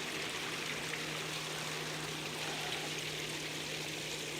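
Steady rushing background noise with a faint low steady hum underneath.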